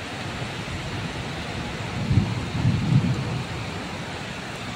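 Heavy rain falling steadily in a thunderstorm, with a low rumble of thunder swelling about two seconds in and lasting just over a second.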